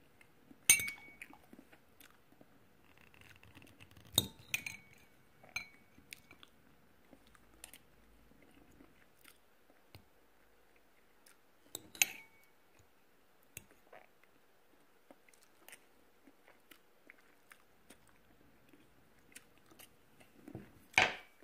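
Metal fork clinking against a ceramic plate: a handful of sharp clinks, some with a short ring, spread out with long quiet gaps between.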